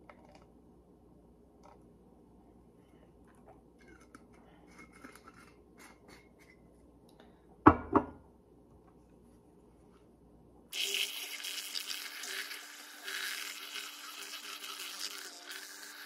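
Two sharp knocks about eight seconds in. A couple of seconds later a handheld milk frother starts buzzing steadily in a mason jar, whipping heavy cream and butterscotch syrup into a thick cold foam.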